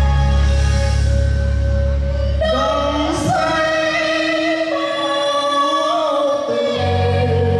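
A song playing: a sung melody over sustained instrumental backing. The deep bass drops away about a third of the way in and comes back near the end.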